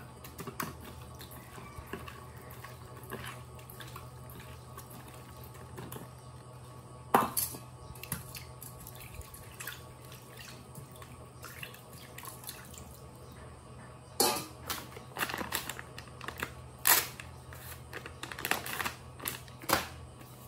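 Food being mixed by hand in a stainless steel bowl, with scattered clinks and knocks against the metal: a loud one about seven seconds in and a run of them in the last six seconds, over a steady low hum.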